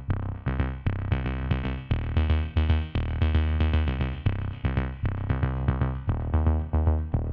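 Electronic background music with a steady drum-machine beat, deep bass and synthesizer notes.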